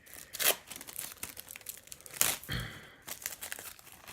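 Foil wrapper of a pack of football cards being torn open and crinkled by hand: a run of crackles and rips, the loudest about two seconds in.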